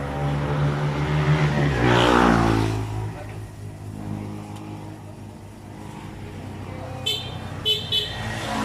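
Street traffic: a motor vehicle's engine passes close by, loudest about two seconds in. Another vehicle swells up near the end, and a few short high beeps sound just before it.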